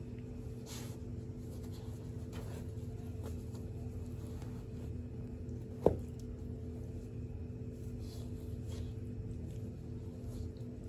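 Dog chewing and tugging at a stuffed plush soccer-ball toy: faint scratching and rustling of fabric and stuffing now and then, over a steady electrical hum, with one sharp click about six seconds in.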